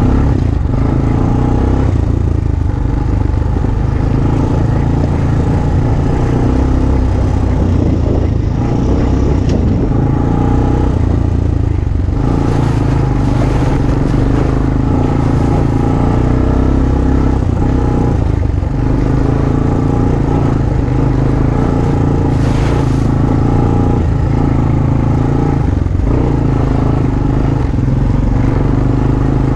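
ATV engine running steadily under way, with a few brief rattles and scrapes now and then.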